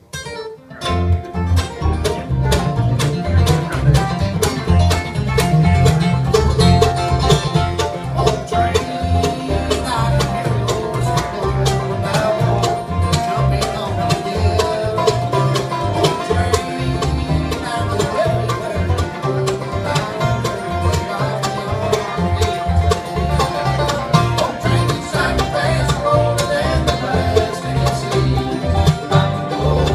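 Bluegrass band playing live: banjo, mandolin, acoustic guitars and upright bass, starting together a moment in with a steady driving rhythm.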